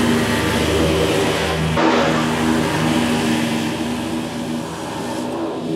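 Scag Cheetah zero-turn mower's engine running under load while mowing grass. The engine note shifts abruptly about two seconds in and eases a little toward the end.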